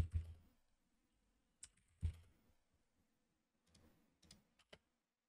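Scattered faint clicks of a computer mouse and keyboard, a handful of single clicks spread over a few seconds, with a soft low thump at the start and another about two seconds in.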